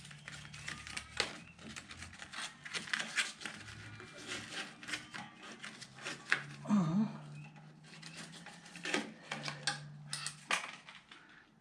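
Hands working small parts and plastic: irregular clicks and taps, with a short low hum about seven seconds in.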